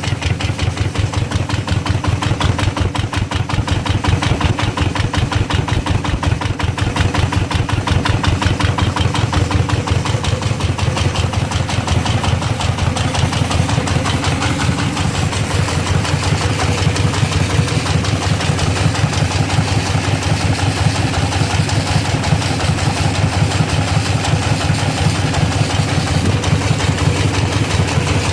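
Diesel engine running steadily at idle, a fast, even train of firing pulses with no change in speed.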